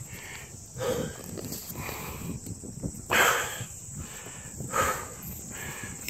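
Hard, gasping breaths of a person walking up a steep slope, about one every second and uneven, with one louder breath about halfway through.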